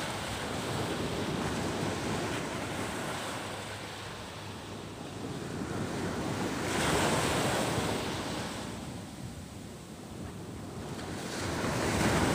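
Sea surf washing onto the beach, swelling and fading as waves break, loudest about seven seconds in and again near the end, with wind buffeting the microphone.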